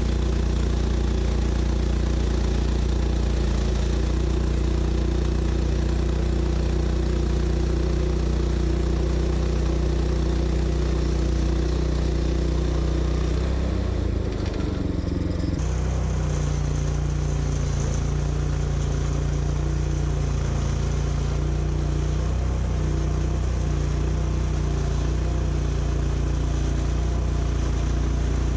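An engine running steadily, with a brief shift in its sound about halfway through.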